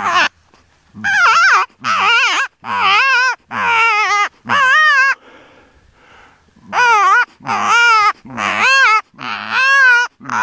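Predator call sounding a prey distress cry to lure coyotes: a string of short, high, wavering wails, about nine, in two runs split by a pause of about a second and a half.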